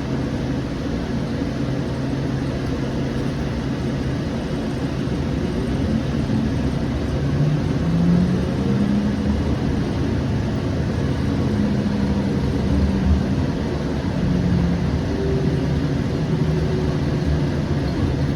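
Siemens S700 light rail car running between stations: a steady rumble with a low motor hum that drifts up and down in pitch.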